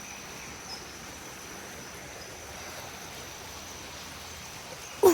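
Steady rush of river water with a constant high insect drone over it. Right at the end a sudden loud call sets in, falling in pitch.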